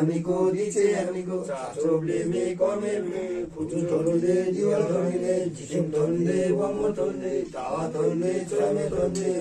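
Men chanting a mantra in a steady, continuous recitation on a nearly level pitch, with only brief breaks for breath.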